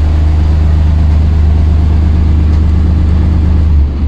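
Free-fall lifeboat's inboard diesel engine idling steadily, heard from inside the enclosed cabin; near the end it is shut down with the stop cable, a brief surge and then the low hum cuts out.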